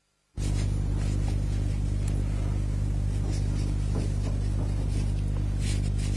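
Steady low electrical hum with hiss, cutting in abruptly just under half a second in after dead silence.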